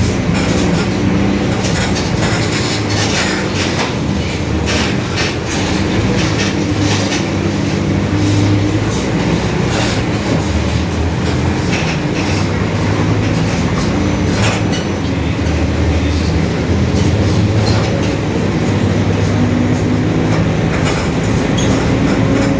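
Rear differential of a 2021 Mercedes-Benz OF-1721 BlueTec 5 city bus droning very loudly as the bus drives. It is a steady low hum that drifts up and down in pitch with road speed, under running noise and frequent body rattles.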